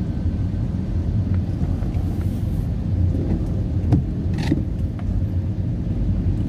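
Car driving on a wet road, heard from inside the cabin: a steady low rumble of engine and tyres, with a few light ticks and a sharper knock about four seconds in.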